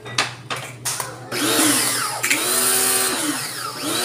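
Electric high-pressure washer starting up: its motor hum comes on, a few short spurts follow as the gun is triggered, and from about a second in there is a steady loud hiss of the high-pressure water jet.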